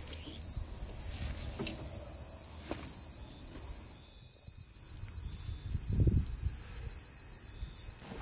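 Crickets chirping in a steady rhythm under a low rumble, with a few soft knocks and rustles from something being handled in an open car boot, and a low thump about six seconds in.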